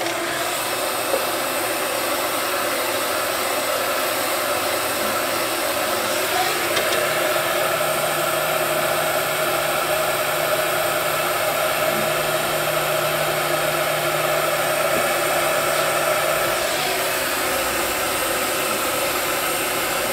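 Electric heat gun blowing steadily, heating the vinyl graphic to soften it so it can be pressed down over the plate.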